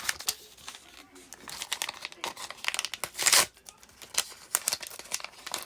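Thin plastic wrapper crinkling and tearing as a small packaged miniature is unwrapped by hand, in irregular sharp crackles with one louder rip a little past the middle.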